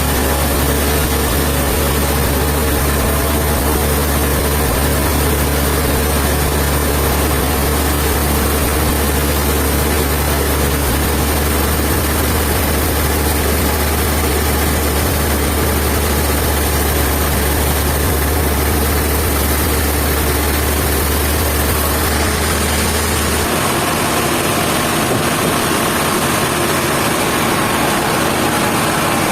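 Large sawmill machinery running steadily with a deep hum and a broad, even mechanical noise over it; the deep hum drops away about three-quarters of the way through while the rest keeps running.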